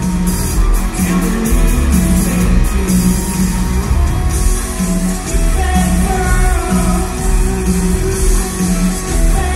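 Live rock band playing at full volume, heard from the audience: electric guitar, bass and a driving drum beat with crashing cymbals.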